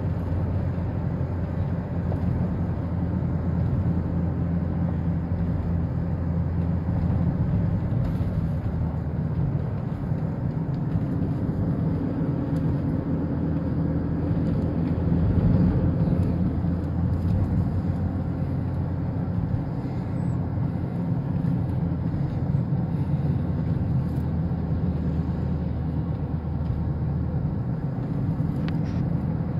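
Steady low engine and road hum heard from inside a moving car's cabin, swelling slightly about halfway through.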